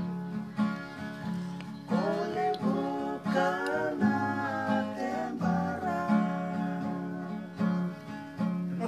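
Acoustic guitar strummed in a steady rhythm, with a voice singing along from about two seconds in until about six seconds.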